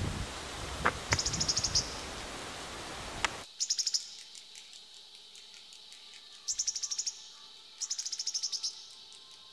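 Nature-sound soundtrack: a loud rushing noise with low rumbles cuts off abruptly about three seconds in, then short, rapid, high-pitched chirping trills come four times, each under a second, over a faint steady high whine.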